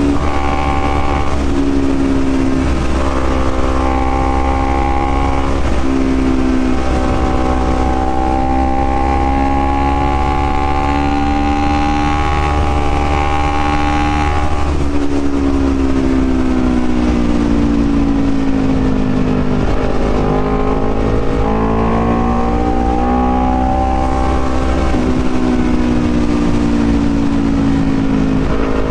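Honda CBR250RR motorcycle engine running under way, its note stepping and gliding up and down with throttle and gear changes, falling steadily for several seconds past the middle, then climbing again.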